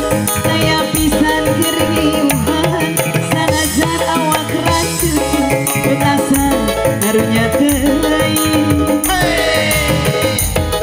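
Live dangdut koplo band music: hand drums playing a busy, fast beat under a sustained melody line, with a falling glide in the melody near the end.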